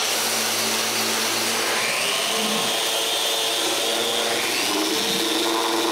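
Electric random orbital sander with a dust-extraction hose running against a plywood box, sanding off excess black paint. Its motor hum is steady, with pitch shifts about two seconds in and again near the end as the pressure on it changes.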